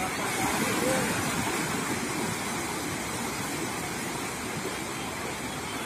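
Surf washing in and breaking in the shallows, a steady rush of water noise that swells slightly about a second in.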